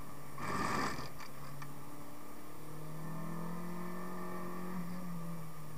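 Renault Megane 1.6 16v's four-cylinder engine heard from inside the cabin, its note climbing slowly from about two and a half seconds in and falling again near the end. A brief loud rush of noise about half a second in.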